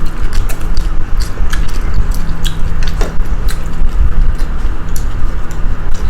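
Close-up chewing and eating sounds of a rice meal, with many small clicks and smacks scattered through.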